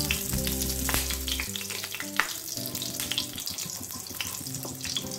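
Refined oil and ghee sizzling in a hot kadai as the ghee melts, with a crackling hiss and small pops while a wooden spatula stirs it. One sharp click about two seconds in.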